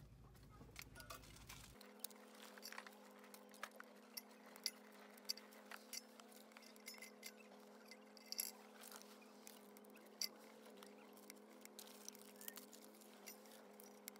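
Split kindling sticks being set and stacked into a steel mesh basket on top of a metal box stove: a scattered series of small wooden knocks and clicks with light metallic clinks, faint overall with a few sharper taps.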